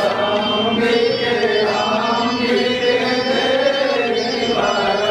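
Hindu mantras chanted in a steady sing-song recitation of sustained, gently gliding notes during puja worship.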